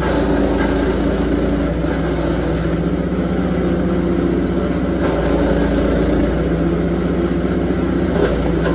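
Lumag Rambo HC10 petrol garden chipper-shredder running at a steady speed while leafy branches are fed into its hopper and chewed up by the cutters. It gets louder for a moment right at the end.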